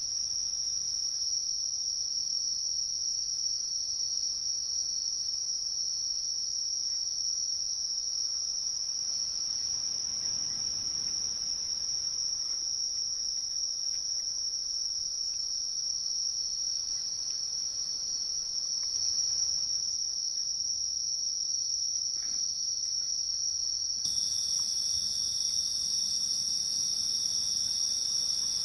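A chorus of insects making a steady, high-pitched trill. A second, slightly lower insect call joins near the end.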